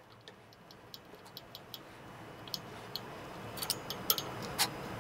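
Small irregular metal clicks and ticks of a 9/64 Allen key working the screws out of a rifle handguard, sparse at first and more frequent in the second half.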